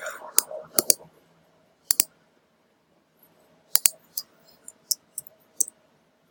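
About a dozen sharp clicks from a computer mouse and keyboard, several in quick pairs, over a faint steady hum.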